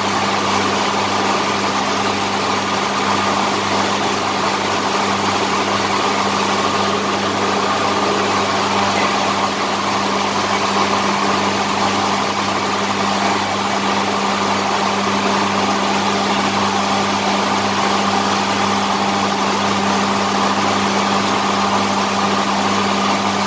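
A machine running steadily at a constant speed: an even, loud drone with a low hum that does not change.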